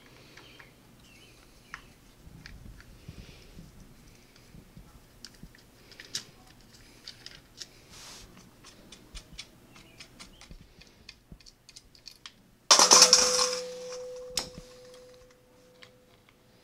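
Small metallic clicks and ticks of a screwdriver and fingers working the clutch adjusting screw and retaining nut in the open derby-cover hole of a Harley-Davidson Sportster's primary. About three-quarters of the way through, a sudden loud metallic clatter, with one ringing tone that dies away over two to three seconds.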